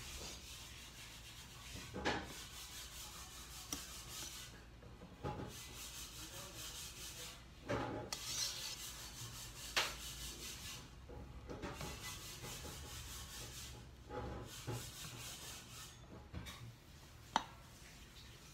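Silicone spatula scraping and rubbing against a stainless steel mixing bowl as egg whites are folded into cake batter, in irregular strokes with a few sharp clicks.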